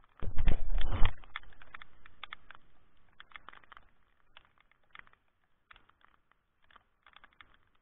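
A loud, low, muffled rumble right on the microphone for about a second, fading away, then scattered light ticks of raindrops hitting the camera.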